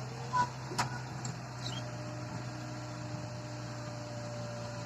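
Mahindra 575 DI tractor's diesel engine running steadily, with two short clicks in the first second.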